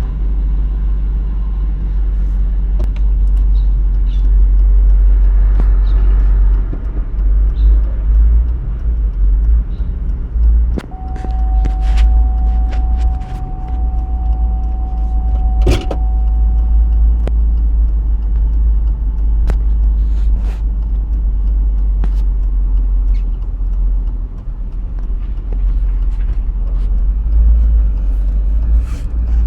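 GMC Yukon Denali on the move: a steady low rumble with scattered short creaks and clicks, the creaking noise the owner is trying to trace.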